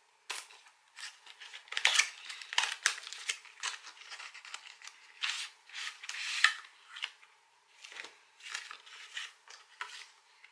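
Small cardboard box opened by hand, its flaps, tray and paper insert scraping and rustling in short, irregular strokes.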